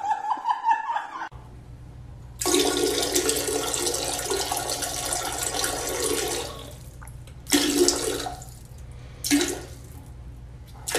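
Toilet flushing: a loud rush of water for about four seconds, then two shorter rushes, over a steady low hum.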